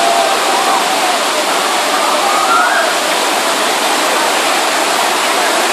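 Cascading waterfall rushing steadily as water pours over stepped rock shelves, with faint voices carried over it.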